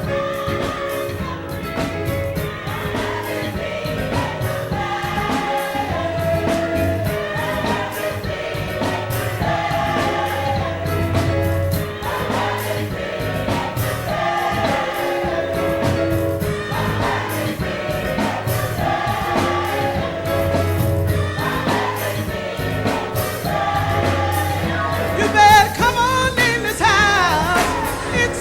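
Gospel choir singing sustained chords over a steady bass line; near the end a solo voice with wavering, sliding pitch rises above the choir.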